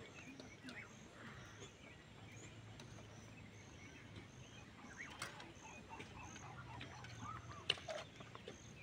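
Faint outdoor ambience with birds chirping, including a high chirp repeated at even spacing, and a few sharp clinks of a metal serving spoon against a steel pot, the loudest near the end.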